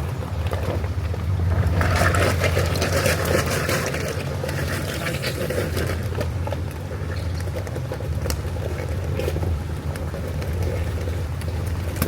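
Off-road vehicle driving a rough trail: a steady low engine hum with tyre noise and frequent knocks and rattles from the bumpy ground.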